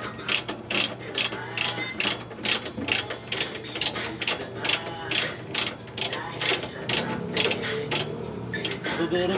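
Ratchet wrench clicking as the leaf-spring U-bolt nuts are tightened, in a run of sharp clicks about three a second that thins out after about six seconds.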